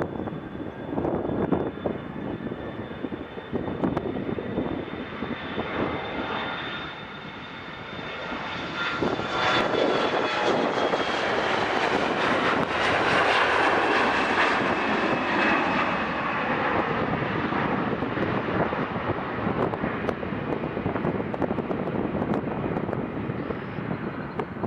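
Airplane passing by, its engine noise swelling to a peak about halfway through and then fading. A high whine runs through it and slowly falls in pitch.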